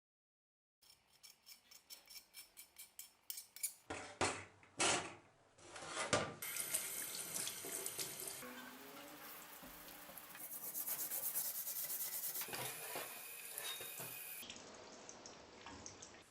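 Water running from a tap, with metal being rubbed and handled in it. Before that come a run of quick, evenly spaced ticks and a few sharp knocks. The sound is split into short edited clips.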